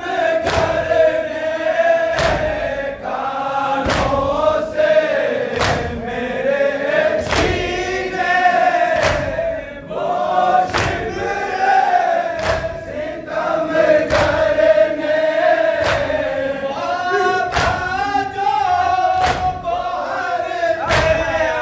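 Men's voices chanting a nauha (Shia lament) together, led on a microphone, with matam, hands striking chests in unison about once a second, keeping the beat.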